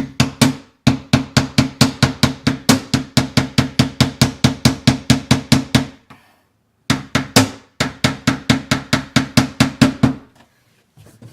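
Hammer tapping small nails through thin wood molding into a door's glass frame: two runs of quick, even strikes, about five a second, with a short pause about six seconds in.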